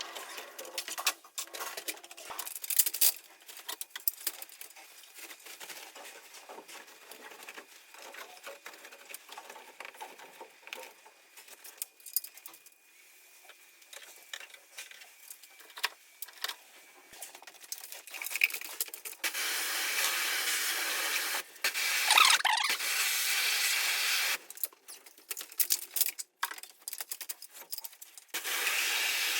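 System air conditioner cleaning work played at seven times speed: scattered quick clicks, knocks and rubbing of parts being handled, then, from about two-thirds of the way in, a loud steady hiss in long stretches broken by short pauses.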